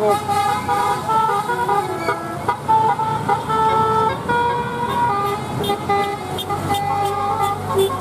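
Bus 'basuri' telolet horn, a multi-note musical air horn, playing a melody. Held notes step from one pitch to the next, every half second to a second or so.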